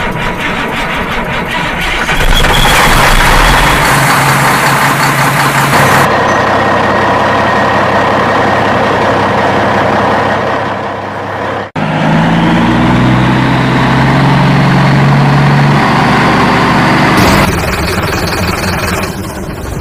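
Truck engine sounds, running and idling steadily, that change abruptly at several hard cuts, with a brief dropout about twelve seconds in.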